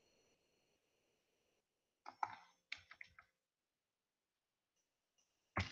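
A few quick clicks and taps of a computer mouse and keyboard over near silence, in two short clusters about two and three seconds in, with a sharper single click near the end.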